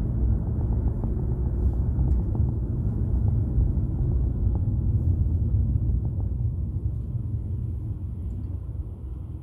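Road and engine noise heard inside a moving car's cabin: a low, steady rumble that quietens over the last couple of seconds as the car slows to a stop at a red light.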